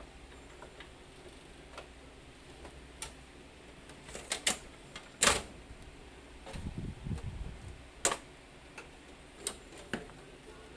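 Irregular clicks and knocks of small hard objects, with a few sharper snaps between about four and ten seconds in and a short low rumble around seven seconds in.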